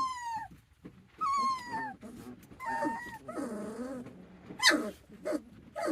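Young livestock-guardian-dog puppies crying: a few high, whistly cries that fall in pitch, then softer lower whimpers and a sharp squeak near the end.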